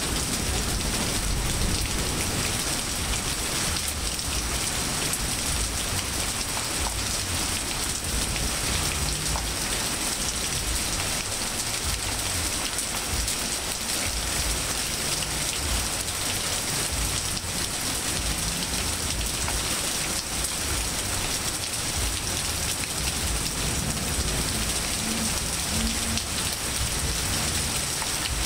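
Steady rain falling on grass, pavement and leaves: an even, unbroken hiss.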